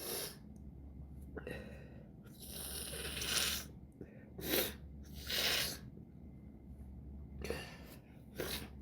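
A person sniffing and breathing noisily through an irritated, tickling nose: about seven short sniffs and breaths, one drawn out for about a second near the middle.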